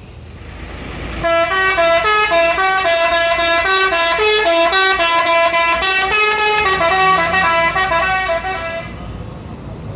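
A multi-tone bus horn of the Indonesian 'telolet' kind playing a melody. It sounds many short notes in quick succession, starting about a second in and stopping about nine seconds in.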